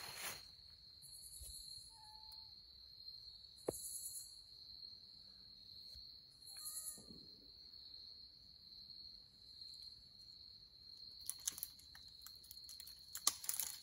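Insects trilling steadily at a high pitch, with a second, higher buzz that comes and goes every couple of seconds. Two short faint calls cut in, one about two seconds in and one midway, and a few brief rustles come near the end.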